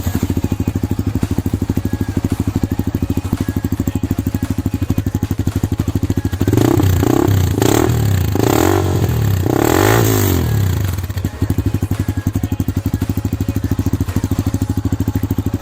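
Honda CB 250cc motorcycle with an Akrapovic slip-on exhaust idling with a fast, even beat. About halfway through it is revved with several quick throttle blips over a few seconds, then settles back to idle.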